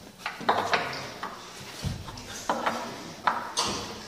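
Pegs knocking into and out of the holes of a wooden peg board as a climber moves along it: a string of irregular sharp clunks, roughly two or three a second, with a duller thump about two seconds in.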